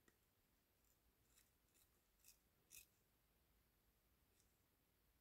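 Very faint, short crackly ticks of a scalpel blade cutting and trimming masking tape on a diecast toy car body, about six in all, the loudest a little under three seconds in.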